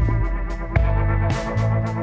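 Instrumental electronic background music: held keyboard chords over a bass line that changes note a few times, with short drum hits.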